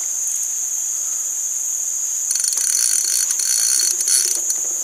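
Spinning reel's drag clicking rapidly as a hooked big fish pulls line off, from about two seconds in until near the end. Beneath it, a steady high-pitched drone of insects.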